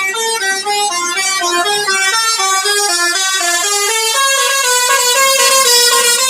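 Telolet bus horn, a multi-tone musical air horn, playing a quick melody of short stepping notes, the notes held a little longer in the second half.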